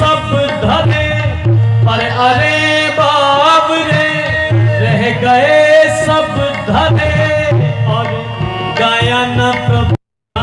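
A Hindi song with tabla accompaniment and a long, wavering melodic line, drawn-out singing or a melodic instrument. The sound cuts out abruptly for about half a second near the end.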